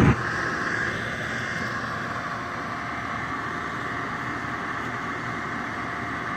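Gas gun burner's flame roar cuts off abruptly just after the start, leaving the burner's blower fan running steadily with a faint whine. The flame drops out because the control module is not proving flame, which the technicians put down to a faulty flame probe.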